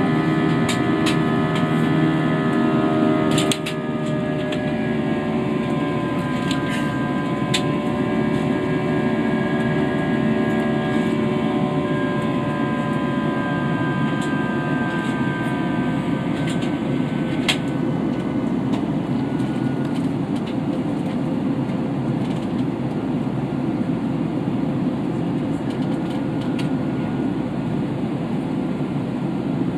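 Cabin noise aboard an Airbus A320-232 in its climb: a steady rush of air and engine noise from its IAE V2500 turbofans, with several humming tones over it. About three and a half seconds in the sound drops a little, and the tones then slowly fall in pitch. A few faint clicks come through now and then.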